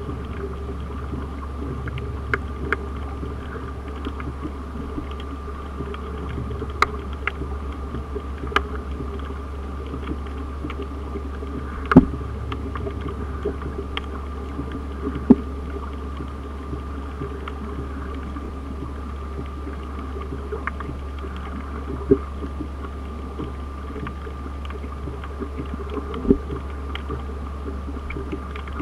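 Underwater ambience on a coral reef: a steady low hum with a thin steady tone above it, and scattered sharp clicks and pops throughout, the loudest about twelve seconds in.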